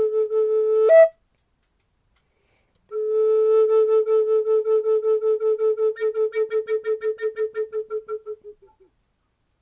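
A flute holding long notes with a wavering pulse about five times a second. The first note steps briefly up and breaks off; after a short pause a second long note at the same pitch fades slowly away.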